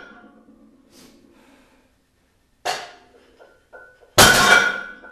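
Iron weight plates on a loaded one-hand deadlift handle clanking down between partial reps: two sharp clanks, the second louder, each leaving a short metallic ring, with small clinks between them.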